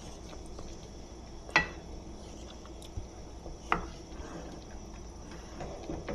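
A cooking utensil clinks sharply against a pan twice, about two seconds apart, over a steady low background hum.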